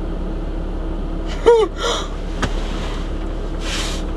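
A steady low hum fills the car cabin, with a short gasp-like vocal sound that bends in pitch about a second and a half in and a brief breathy hiss near the end.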